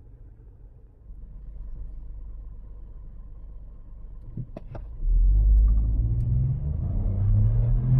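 Geely Atlas Pro's turbocharged 1.5-litre three-cylinder engine idling quietly, with a few short clicks a little after four seconds. About five seconds in the SUV launches at full throttle: the engine note jumps sharply in level and climbs steadily in pitch as it accelerates.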